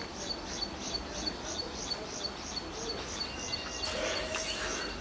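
A high chirping call repeated evenly, about three times a second, over outdoor background noise, with a short hissing rustle about four seconds in.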